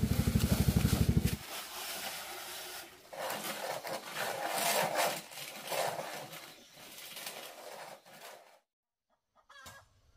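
A loud, low pulsing hum that cuts off about a second and a half in, then chickens clucking, which stop near the end.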